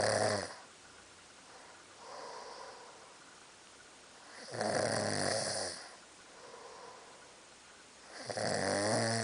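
A person snoring: a loud snore about every four seconds, with a quieter breath between each.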